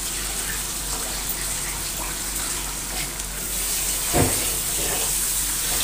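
Onion-tomato masala with boiled potatoes sizzling steadily in a hot steel kadhai as mashed boiled peas are tipped in, with a single metallic knock about four seconds in.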